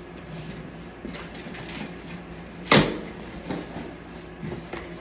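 Cardboard packaging being handled and opened, with rustling and small knocks and one loud sharp knock about three seconds in.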